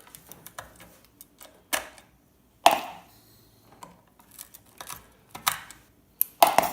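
Small electronic components being prised off a circuit board and tossed into a container: irregular clicks and knocks. The loudest comes about a third of the way in, with another just before the end.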